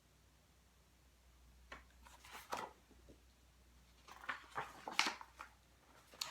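Soft rustles and crinkles of a picture book's paper pages being handled and turned, in two short clusters about two seconds apart.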